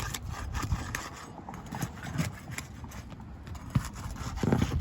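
A roof snake shingle tool being worked under 3-tab asphalt shingles to break their seal strips: a run of sharp knocks and scrapes, heaviest near the end.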